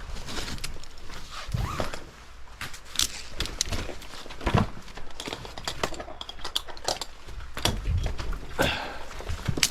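Irregular knocks, clicks and rustling from handling or moving about, with no chainsaw running.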